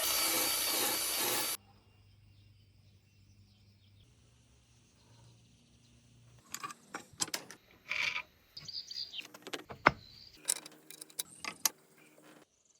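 A power tool grinding or sanding cuts off abruptly about one and a half seconds in. After a quiet stretch, irregular clicks and knocks follow from halfway on, as of small parts being handled and set down.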